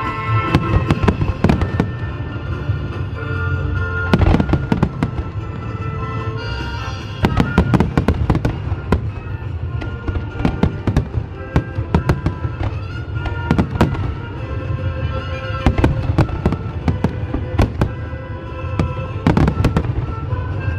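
Fireworks bursting in a rapid, uneven series of sharp bangs, over music with held notes.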